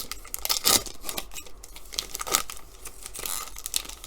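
Trading cards and their foil pack wrapper handled at close range: a series of sharp papery slides and crinkles, the loudest about two-thirds of a second in and again just past two seconds.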